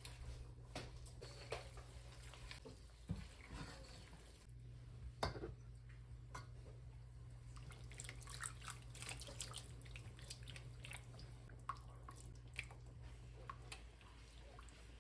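Faint stovetop cooking: a sauce simmering in a wok with scattered small pops and drips, and light taps of a spoon and spatula against the pans, over a steady low hum.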